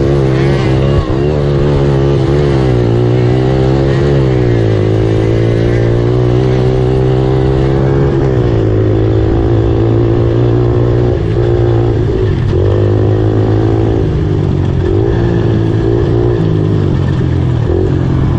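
Racing ATV engine running hard, heard close up from the machine itself. Its pitch climbs and drops repeatedly as the throttle is worked on and off and the rider shifts over rough dirt and grass trail.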